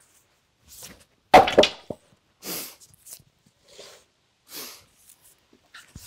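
Two sharp chopping strikes of an edged tool into a silver maple log chunk, the first the loudest, about a second and a half in, followed by a few softer short scraping or breathing-like noises as the wood is worked. The wood is not splitting easily.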